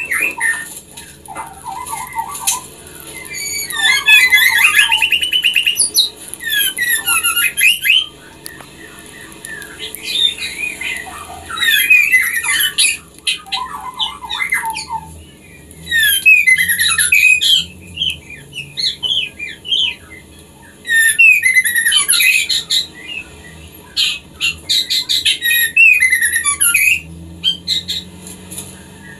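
Female white-rumped shama calling in breeding condition, the call of a hen ready to mate. It gives repeated phrases of fast, squeaky, chattering notes, each a second or so long, with short pauses between.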